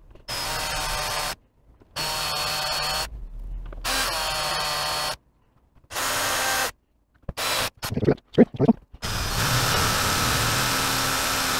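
Cordless drill running in short bursts, about five of them, each at a steady speed, as it drills out rusted screws whose heads have stripped on an old Weller Instant Heat soldering gun. There are a few sharp knocks about eight seconds in, then one longer run.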